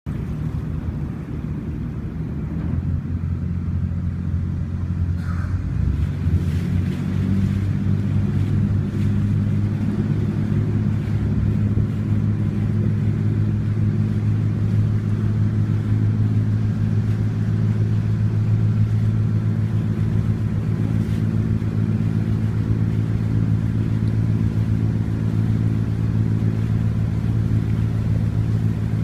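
Passenger ferry's engine heard on board, a low steady drone. It builds up over the first few seconds as the boat gets under way, then runs evenly at cruising speed.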